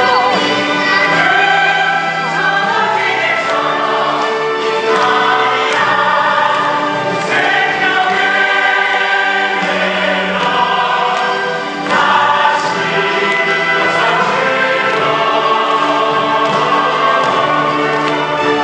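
Choral singing by many voices over orchestral accompaniment: a stage-musical cast singing together in chorus.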